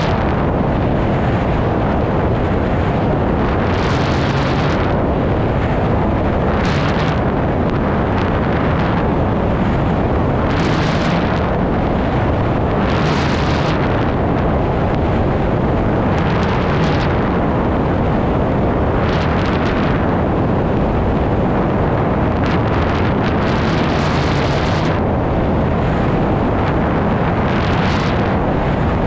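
Heavy wind buffeting the microphone of a camera mounted on a tandem hang glider in flight. It is a steady, loud rush, with a brighter hissing surge every two to four seconds.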